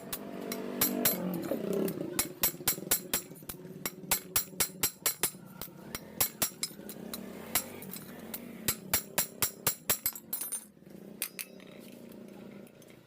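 Metal being tapped with a hand tool: sharp clinking strikes in quick runs of about five or six, with short pauses between the runs.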